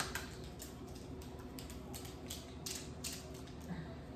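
Faint, irregular light clicks and ticks of a plastic pineapple-juice bottle being handled, its screw cap turned.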